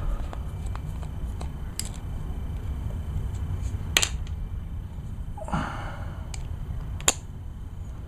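Small clicks and taps of a screwdriver and loose screws on a small Zama carburetor being taken apart, with two sharper clicks about four and seven seconds in and a short scrape between them, over a steady low hum.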